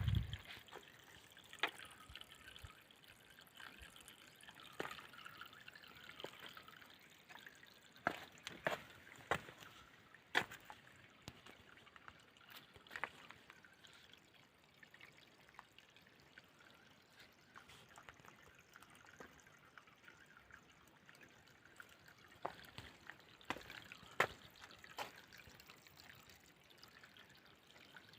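Water trickling and dripping, with irregular small splashes and ticks.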